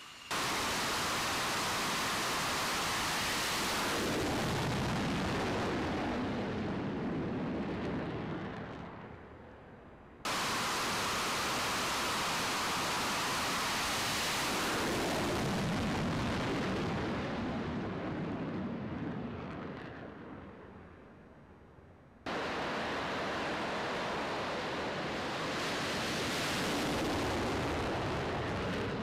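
Twin jet engines of an F/A-18 Super Hornet at full power during an EMALS catapult launch, the noise dying away as the jet leaves. Three launches in a row, each cutting in suddenly, about 10 s and 22 s in.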